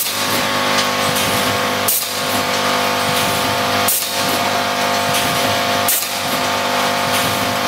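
HMK1600 edge-spout doypack packaging machine running: a steady mechanical hum, with a short, sharp burst of noise about every two seconds as it cycles.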